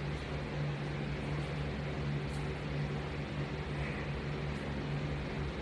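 Steady low hum over an even hiss: background room noise with no distinct events.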